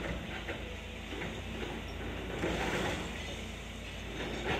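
Volvo EC300D crawler excavator's diesel engine running steadily, with irregular clattering of broken masonry and rubble during demolition.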